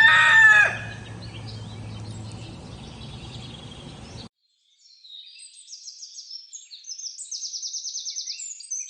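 The falling end of a rooster's crow, then a steady farmyard background. After a sudden cut and a moment of silence, small birds chirp and sing high rapid trills.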